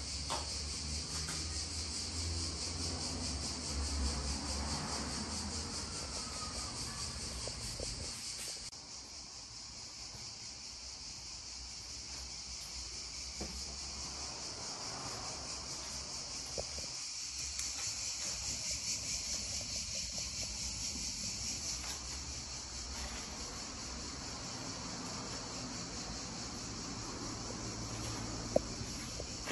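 Insects chirring steadily in a high-pitched, continuous drone, with some low rumble of handling in the first several seconds and a single sharp click near the end.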